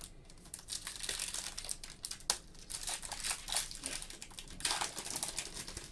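Plastic wrapper of a Panini Flux basketball card pack crinkling in gloved hands as it is torn open. Irregular crackles, with louder bursts about two seconds in and near the end.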